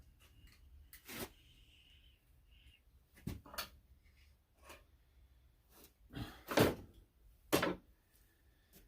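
Wooden beehive frame parts knocking against a wooden assembly jig as they are handled and set in place: a string of separate knocks and clatters, the loudest about six and a half seconds in.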